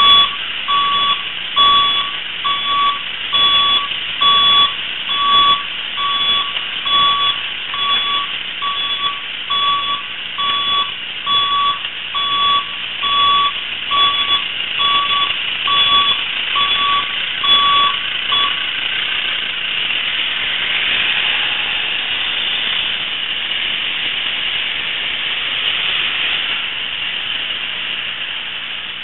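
A vehicle's reversing beeper sounding a steady series of short, evenly spaced beeps, which stop about two-thirds of the way through. After that comes a steady hiss of the vehicle running and moving.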